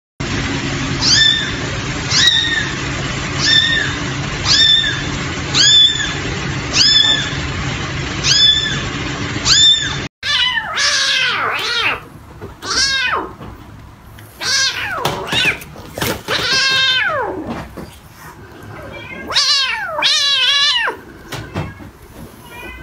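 Kittens mewing. First a kitten gives short, high mews about one a second, evenly spaced, over a steady low hum. About ten seconds in there is a cut, and several kittens give longer, louder mews that fall in pitch, at irregular intervals and sometimes overlapping.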